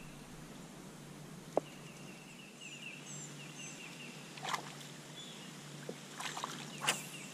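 A songbird repeating a short chirping phrase, over a faint steady low hum. A few sharp clicks and taps from handling the rod and reel, the loudest about a second and a half in.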